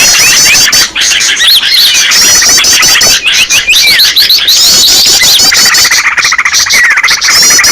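Dense chorus of many small songbirds calling at once, overlapping rapid series of high, hooked chirps and twitters without pause: a bird-lure (pikat) recording of small birds, used to draw wild birds in.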